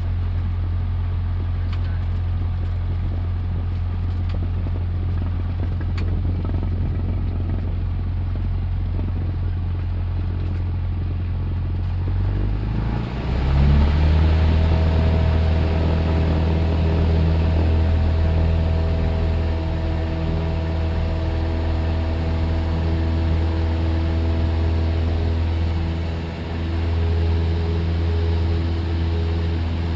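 Cessna 172 piston engine and propeller droning steadily inside the cabin, then about halfway through the engine note steps up in pitch and grows louder as power is brought up for the takeoff roll, holding at a higher steady drone.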